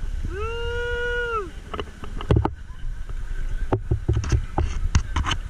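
A voice gives one long, drawn-out call of about a second near the start. Then comes a run of sharp splashes and knocks from feet wading through shallow river water.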